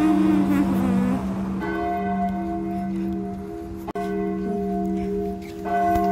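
Church bells ringing the noon hour: several bells sounding together in a steady, lingering chord, struck afresh every few seconds.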